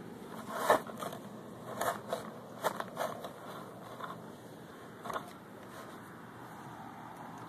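Shovel digging into lawn soil: a series of short crunching scrapes as the blade cuts through turf and dirt and soil is lifted out of the hole, the loudest about a second in, then quieter toward the end.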